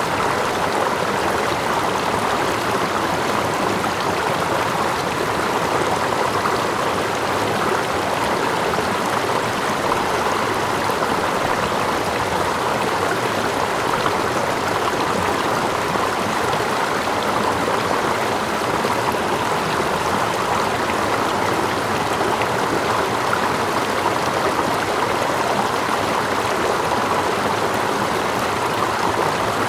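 Running water of a stream: a steady, even rush of flowing water, with gentle lapping close by.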